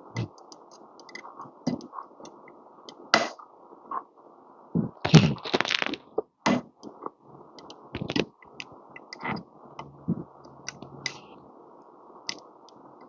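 Irregular small metallic clicks, taps and scrapes of an Allen key and screw being worked against the metal group of a lever espresso machine while fitting a hard-to-reach screw, with a louder cluster of knocks about five seconds in.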